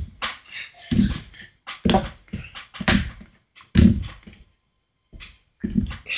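A hand slapping and pressing Play-Doh flat on a hard wooden tabletop: a series of thuds, about one a second, with a few lighter knocks between them.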